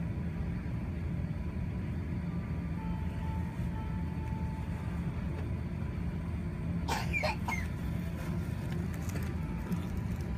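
Steady low rumble inside the cabin of a Malaysia Airlines Airbus A380 on the ground before takeoff, its engines at low power. A brief clatter of clicks comes about seven seconds in.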